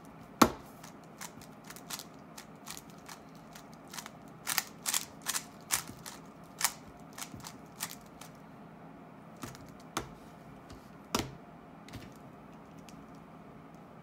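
Rubik's cube being turned at speed, its plastic layers clicking and clacking in irregular bursts. There is one sharp loud click about half a second in and a quick run of clacks around the middle.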